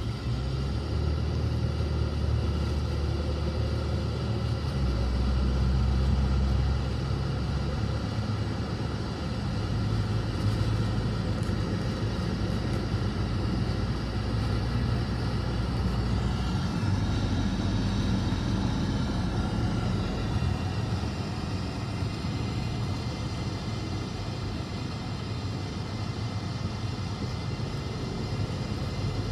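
Steady road noise inside a moving car: a low engine hum under tyre noise.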